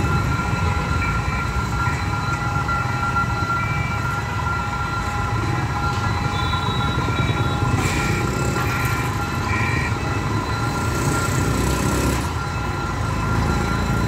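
Level-crossing warning alarm sounding steadily while the crossing barriers lower, over a low rumble of street traffic. A few short, higher beeps come about halfway through.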